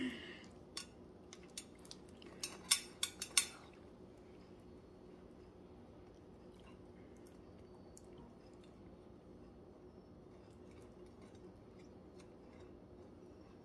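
A few sharp clicks and clinks of kitchenware being handled, bunched together around three seconds in, then only a faint steady hum.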